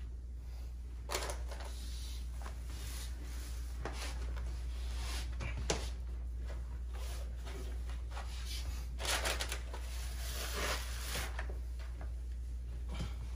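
Irregular paper rustles, crinkles and light clicks of hands working a sheet of grasscloth wallpaper into a wall corner, with the crumpled kraft paper on the floor crackling as it is moved. There is a steady low hum underneath, and a denser run of rustling comes a little past the middle.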